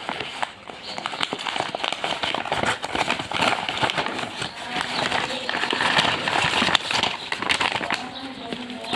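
Packaging being handled and opened, rustling and crackling with many irregular small clicks.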